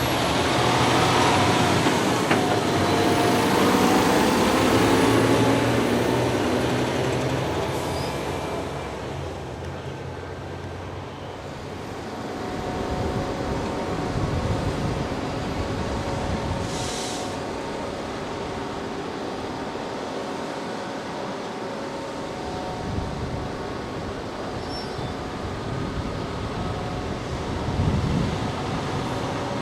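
Heavy diesel farm machinery running during corn silage work: a machine passes close in the first several seconds, its engine note sliding up and down, then engines keep running at a steadier, lower level, with a brief hiss about two-thirds of the way through.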